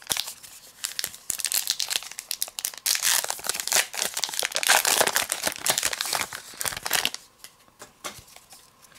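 Trading card pack wrapper being torn open and crinkled in the hands: a dense crackling that dies down about seven seconds in.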